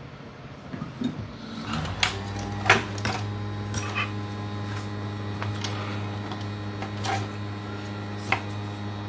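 Hot-air rework station blower switching on about two seconds in and running with a steady hum, with several sharp clicks and taps of handling over it.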